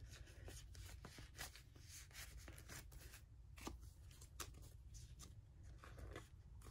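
Faint rustling and light scattered ticks of white filler cards being slid into a binder's plastic photocard sleeve pockets.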